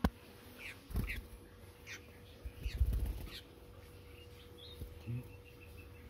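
Tame sooty-headed bulbul (kutilang) giving about five short, falling chirps over the first three and a half seconds, with a few low thumps between them.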